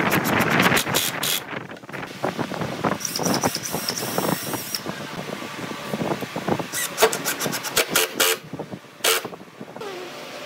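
Cordless impact driver driving long wood screws into a pine table frame, hammering in several short bursts with pauses between them.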